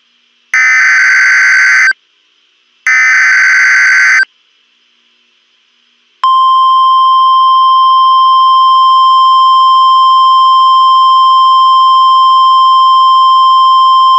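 NOAA Weather Radio emergency alert signal: two harsh, screeching bursts of SAME header data, each about a second and a half long with short pauses between them. About six seconds in, the steady, unbroken 1050 Hz warning alarm tone starts and holds. Together they signal that a warning broadcast is about to follow.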